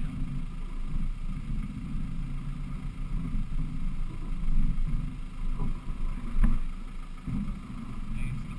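Land Rover Defender 110's engine rumbling as it crawls down rock steps, heard through a roof-mounted camera with wind buffeting the microphone. A single sharp knock about six and a half seconds in.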